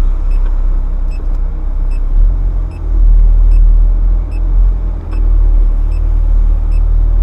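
Ferrari F430's V8 engine running at low speed with a deep, steady rumble during slow manoeuvring; the rumble swells slightly a couple of seconds in. A faint regular ticking sits over it.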